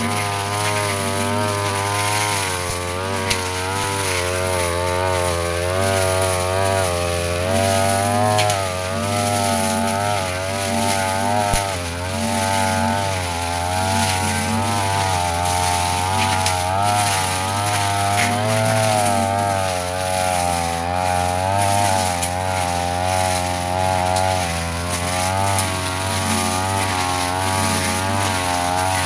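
Yasuka backpack brush cutter engine running hard, its pitch rising and falling again and again as the spinning cutter head is swung through grass and weeds.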